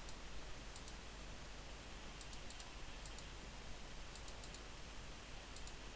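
Faint small clicks in quick clusters of two to four, repeating every second or so, as cardboard jigsaw pieces are handled and pressed into place, over a low steady hiss.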